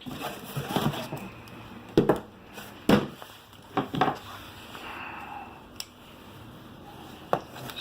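Packaging being handled as a camcorder is unpacked: crinkling and rustling with about five sharp clicks and knocks spread through.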